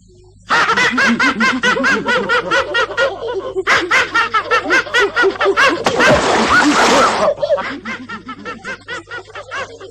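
A pack of cartoon hyenas cackling together: several voices in rapid, hiccuping bursts of laughter. It starts suddenly about half a second in and thins out over the last few seconds.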